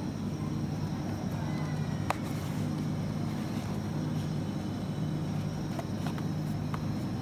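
Steady low mechanical hum of a supermarket's open refrigerated display case, with a faint high whine above it. A sharp click about two seconds in and a few light ticks near the end come from the egg cartons being handled.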